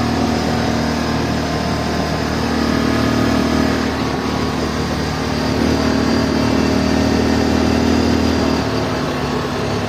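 Small 600cc U-Force off-road buggy's engine running steadily while driving, heard from inside the cab. The engine note changes about eight and a half seconds in.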